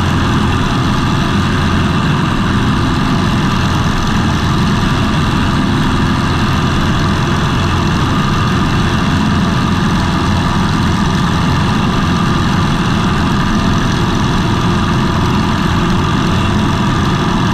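Savage Outback light aircraft's piston engine and propeller running steadily in flight, a loud, even drone with no change in pitch.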